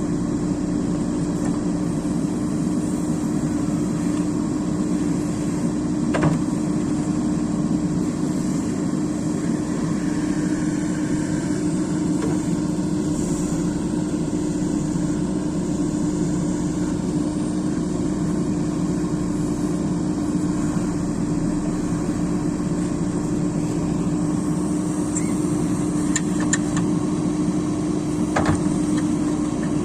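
Excavator's diesel engine running at a steady speed, with a sharp knock about six seconds in and another near the end.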